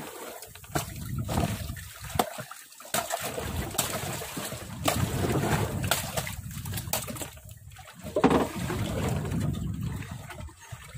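Sea water splashing and sloshing against a small wooden fishing boat's hull, with a few sharp knocks as a tuna handline is hauled in hand over hand.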